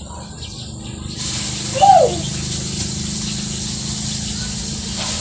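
A bird call: one short call sliding down in pitch about two seconds in, over a steady hiss, with faint high chirps fading out at the start.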